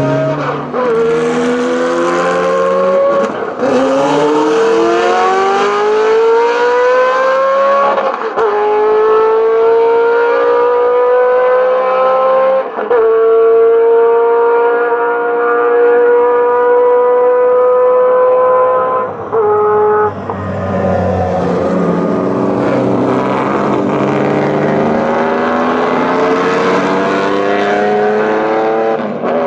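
Racing car engine accelerating hard at full throttle. Its pitch climbs and drops back at each upshift, with shifts about 1, 3.5, 8 and 13 seconds in, then holds nearly steady in a long high gear. Near 20 seconds in, another race car's engine rises through the gears.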